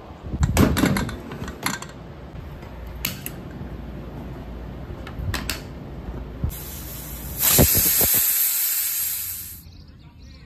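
Aluminium pressure cooker with its whistle weight on: a few light metal clicks and knocks on the lid, then about six and a half seconds in a loud steady hiss of steam that cuts off suddenly.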